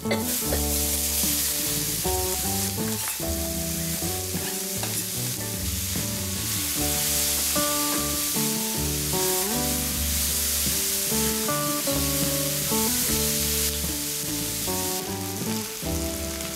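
Chopped onions sizzling in hot oil in a pot, the sizzle jumping up at the start as they go in, and stirred with a wooden spatula. A background melody plays throughout.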